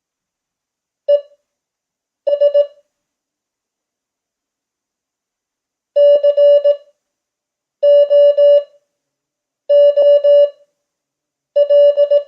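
Morse code (CW) tone near 600 Hz sent at 5 words per minute with Farnsworth spacing: six characters of short dits and longer dahs, each character separated by a long silent gap.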